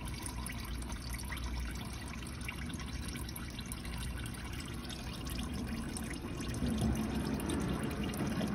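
Used engine oil draining out of a car's aluminium oil pan: a steady trickle with scattered drips.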